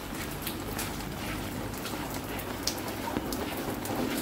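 Steady rain falling, with many individual drops striking close by as short sharp ticks; one tick stands out about two and a half seconds in.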